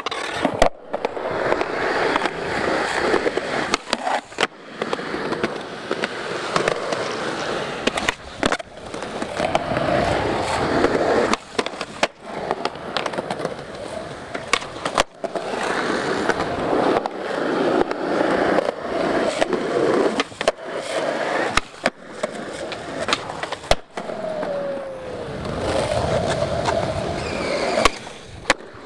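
Skateboard wheels rolling on smooth concrete, a steady rushing noise broken by sharp clacks of the board striking the ground. The sound cuts off abruptly several times and picks up again.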